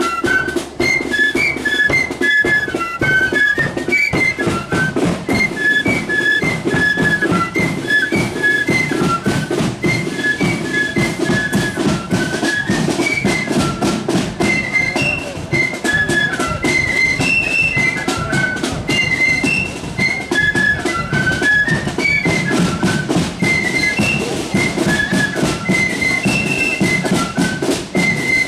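Marching flute band playing a tune in unison on flutes, the melody running in quick high notes, with drums beating time underneath.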